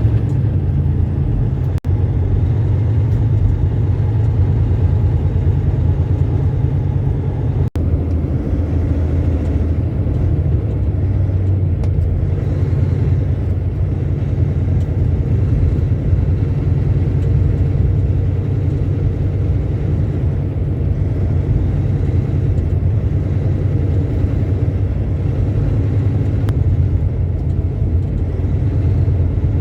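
A semi truck's engine and road noise, a steady low drone while cruising down the highway, heard from inside the cab. The sound cuts out briefly twice, about 2 and 8 seconds in.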